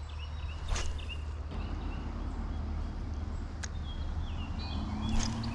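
Small birds chirping again and again over a steady low rumble, with two sharp clicks, one about a second in and one near the end.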